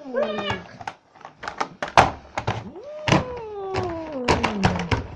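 Domestic cat meowing: the tail of one meow at the start, then a long drawn-out meow that rises and slowly falls in pitch over the second half. Several sharp knocks or thuds come in between, the loudest about 2 seconds in.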